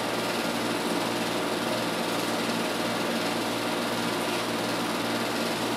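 Steady mechanical hum, unchanging in level and pitch, like a motor running at constant speed.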